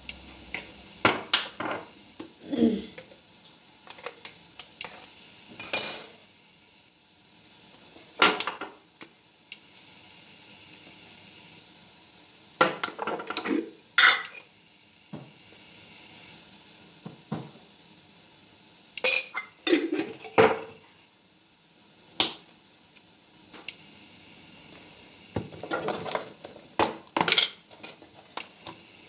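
Irregular kitchen handling clatter: a metal spoon clinking and scraping on a ceramic plate, and spice jars and a plastic tub being opened, shaken and set down, in short clusters of clicks and taps with a faint hiss between them.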